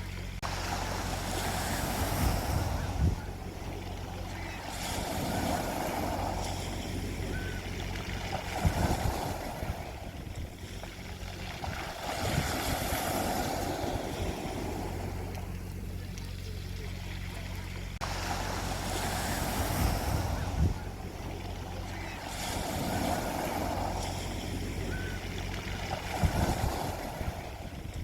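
Sea waves washing onto a beach, the surf swelling and falling back every few seconds with a few louder breaks, over a steady low hum.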